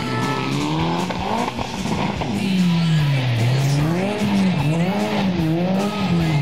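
Rally car engine revving through a hairpin: the engine pitch climbs and drops several times as the throttle is worked and gears are changed.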